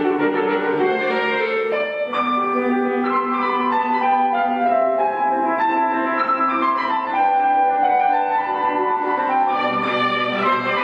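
Instrumental classical background music: a slow melody in held notes, with violin and piano.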